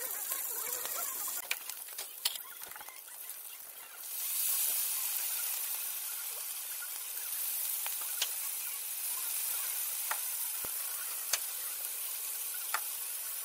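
Silkworm pupae frying in hot oil in a cast-iron pan, with a spatula scraping and clicking against the pan in the first few seconds. About four seconds in, a loud sizzle starts as tomato pieces go into the hot oil, and it holds steady, with single sharp ticks now and then.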